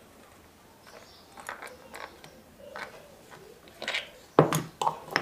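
Metal parts and hand tools clicking and knocking while engine parts are handled and fitted, a few separate knocks with the loudest about four seconds in.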